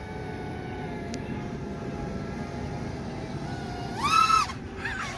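Coal train running by: a steady low rumble with faint steady tones above it. About four seconds in comes one short, loud, high-pitched squawk.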